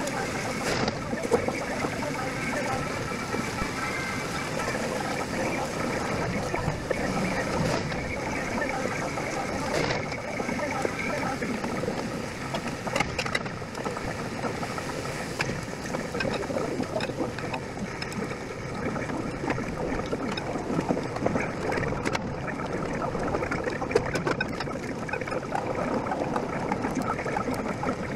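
Steady background noise of a ramen shop's kitchen, with a few sharp clicks of chopsticks and a spoon against a ceramic ramen bowl while someone eats.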